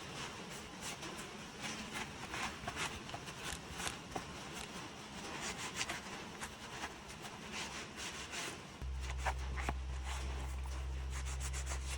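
Mineral oil being rubbed into a leather knife sheath: irregular, scratchy rubbing strokes. Near the end a steady low hum comes in suddenly.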